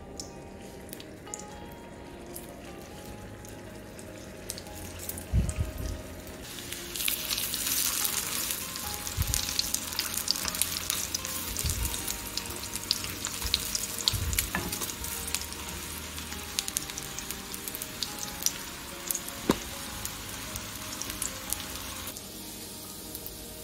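Shami kababs shallow-frying in oil in a nonstick skillet, sizzling and crackling. The sizzle grows much louder about six seconds in and eases off near the end, with a few low knocks along the way.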